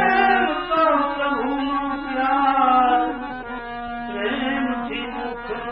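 Male voice singing a long, wavering, ornamented phrase of a devotional bhajan over a steady held harmonium drone. A second, shorter sung phrase comes about four seconds in.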